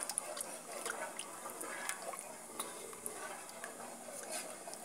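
Wooden spoon stirring a thickening béchamel sauce in a saucepan: soft wet liquid sounds with scattered light clicks of the spoon against the pan.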